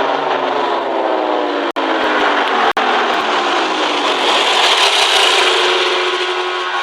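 Outdoor warning siren winding down, its pitch falling slowly and steadily over the first few seconds. The sound cuts out twice very briefly, and a hiss is left as the tone fades.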